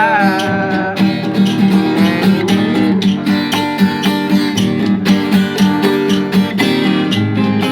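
Acoustic guitar strummed in a steady rhythm with chords ringing under it, an instrumental passage without singing.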